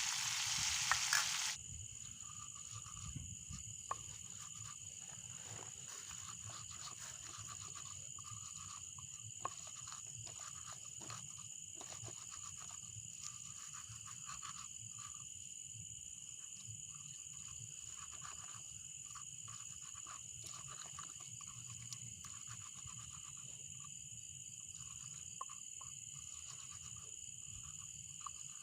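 Steady high-pitched insect chorus, holding two pitches, with scattered faint clicks and knocks. A loud hiss cuts off suddenly about a second and a half in.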